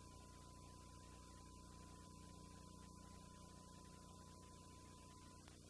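Near silence: faint mains hum and hiss, with a faint steady high tone that stops near the end.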